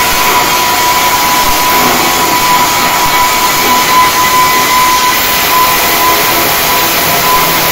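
Flux-cored arc welding in progress: the arc makes a loud, steady hiss with no breaks, with a thin steady whine under it.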